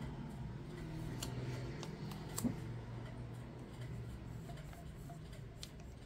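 Faint handling sounds of a vinyl stencil on clear transfer tape being pressed and smoothed onto a glass champagne flute: soft rustles and a few light clicks, over a steady low hum.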